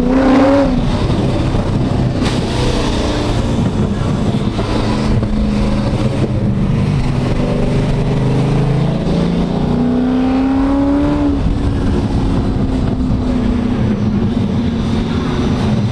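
Cammed 5.7-litre LS1 V8 of a Holden VY Commodore SS ute running under way. The revs climb briefly at the start and again about two-thirds in, then hold steady.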